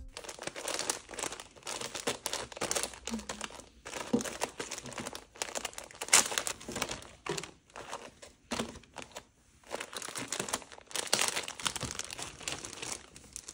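Clear plastic packaging crinkling and rustling in irregular bursts as washcloths sealed in plastic bags are handled and picked up. The loudest rustles come about six and eleven seconds in.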